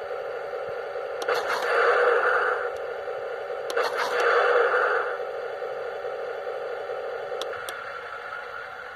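Heng Long RC tank's built-in sound unit playing a simulated tank engine through its small speaker. It runs steadily, with two short surges like revs, about one second and about four seconds in, and a couple of faint clicks near the end.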